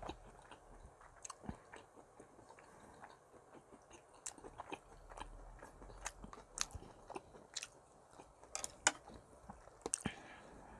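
A person eating: chewing mouthfuls of tofu and rice, with scattered short clicks and taps of chopsticks and a wooden spoon against a plastic container and a pot.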